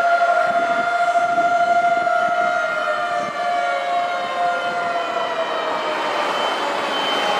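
Fire engine sirens wailing: long held tones that slowly fall in pitch, with several sirens at different pitches overlapping toward the end.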